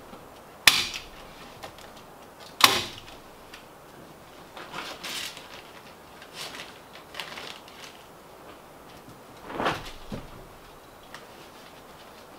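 Two sharp staple-gun shots about two seconds apart, fastening paper-faced insulation batts to wooden floor joists, followed by softer scuffs and rustles of the insulation being handled and a duller knock near the end.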